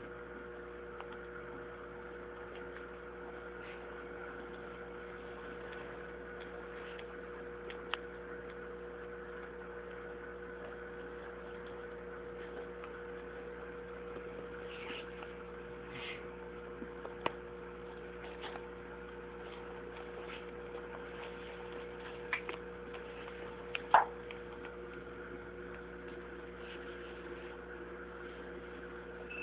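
Steady electrical hum from running aquarium equipment, with a few faint clicks and one sharper tap about 24 seconds in.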